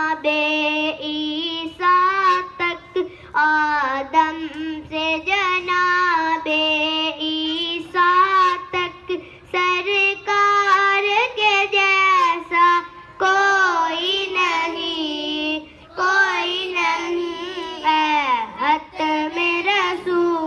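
A boy singing a naat, an Urdu devotional poem praising the Prophet, solo and unaccompanied. He sings in long ornamented phrases with held, wavering notes and short pauses for breath.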